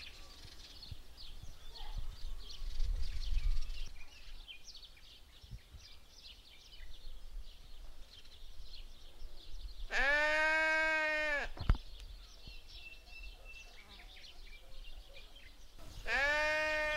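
Sheep bleating twice, each a long call of about a second and a half that rises and falls, with small birds chirping throughout. A low rumble comes in the first few seconds.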